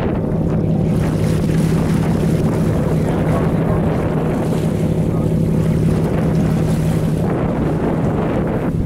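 Tour boat's engine running with a steady low hum, under heavy wind noise on the microphone and the wash of choppy sea.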